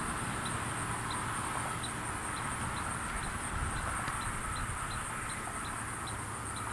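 Outdoor ambience: wind rumbling on the microphone, with a faint short high chirp repeating every half second or so.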